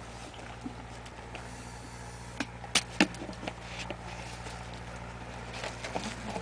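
Handling noise from a homemade plastic-pipe potato cannon: a few sharp clicks and knocks, the loudest two close together about three seconds in, with scattered smaller ticks of movement.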